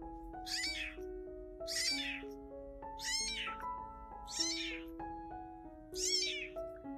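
Kittens mewing, five high-pitched calls about a second apart, each rising then falling in pitch, over background music with a simple melody.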